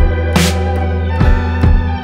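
Background electronic music with a heavy sustained bass and a steady drum beat.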